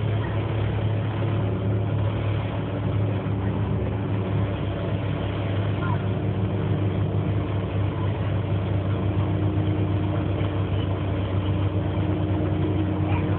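Interior sound of a Wright StreetCar (FTR) bus on a Volvo B7LA chassis under way: the diesel engine running steadily with a deep hum, its note rising slowly.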